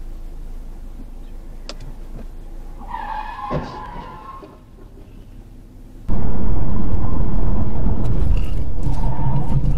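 Tyres squeal briefly about three seconds in, followed by a short crash as two cars collide. From about six seconds in, a much louder stretch of car engine and tyre noise follows as a car slides sideways across the road.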